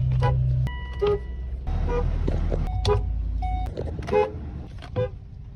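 Car horns honking: about half a dozen short toots of different pitches, with a longer steady horn blast about a second in, over a low engine rumble.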